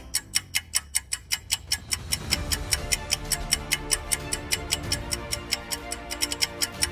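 Quiz countdown-timer sound effect: rapid clock-like ticking, about four ticks a second, over background music whose low notes fill in about two seconds in.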